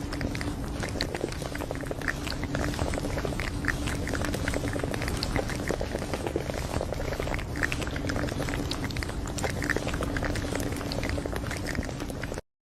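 Close-up chewing: many small wet clicks and smacks over a faint steady hum. It cuts off suddenly near the end.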